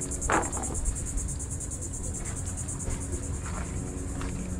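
Insects trilling: a steady high-pitched buzz that pulses rapidly throughout, over a low rumble, with one brief falling sound about a third of a second in.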